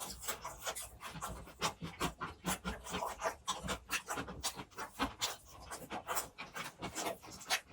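Close-miked chewing of grilled pork belly: wet, smacking mouth sounds in a quick irregular run, several a second.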